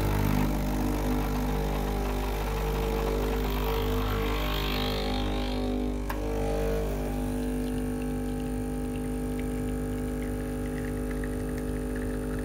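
Breville Infuser espresso machine's vibratory pump humming steadily through a manual preinfusion. About six seconds in there is a click and the hum changes as the shot button is released and the pump goes to full brewing pressure.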